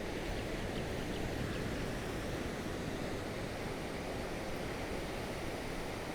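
Gentle ocean waves lapping against the shore, a steady hiss of surf that swells slightly in the first couple of seconds.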